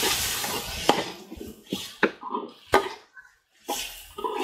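Onions frying in oil in an aluminium pot, a sizzling hiss that fades after about a second, while a metal spoon stirs them and knocks and scrapes against the pot several times.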